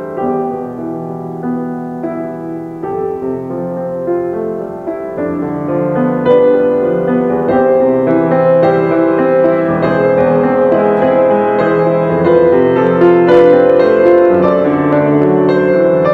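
Piano music playing slow chords and a melody; it grows louder about six seconds in.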